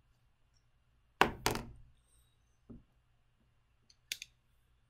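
Plastic hand-clapper toy clacking: two sharp clacks a quarter second apart about a second in, a faint tap a little later, and a short light click near the end.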